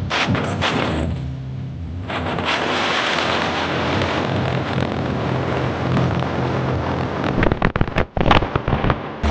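Very loud music from a carnival sound-system truck's speaker stacks, its bass steady beneath a dense crackling noise, with a run of sharp pops about seven to nine seconds in.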